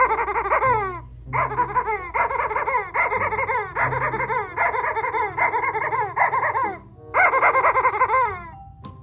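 A baby's high-pitched giggling laughter in three long runs of quick falling 'ha-ha' bursts, with short breaks about a second in and near the end.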